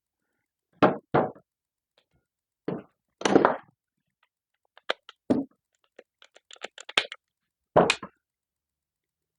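Irregular knocks and clicks of parts and tools being handled: two knocks close together, a few single ones, and a quick run of small ticks before a last knock.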